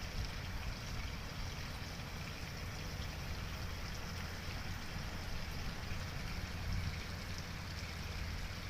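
Steady rush of flowing water, with a low rumble underneath.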